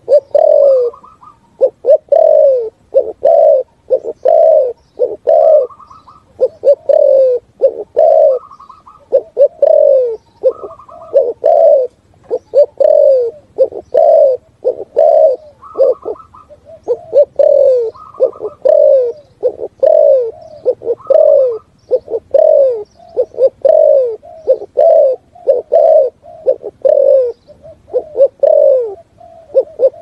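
Spotted dove cooing in a fast, unbroken series, about one to two coos a second, many dropping in pitch at the end. Short higher trills come in now and then. This is the urgent 'thúc gù' cooing that Vietnamese dove keepers play as a decoy call to draw wild doves.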